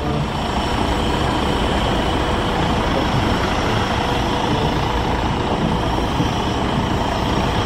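City bus idling at a stop: a steady engine rumble with a faint, even high whine over it.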